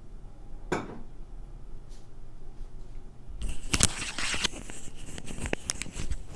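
Small objects being handled: a single click under a second in, then a busy run of rustling and clicking from a little past halfway.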